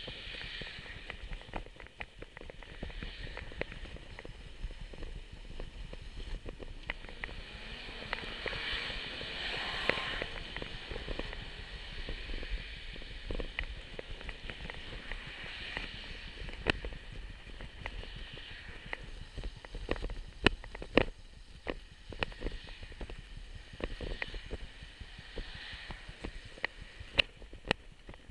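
Bicycle rolling over sidewalk pavement, rattling with many sharp clicks and knocks. The rider puts the rattle down to newly fitted brakes.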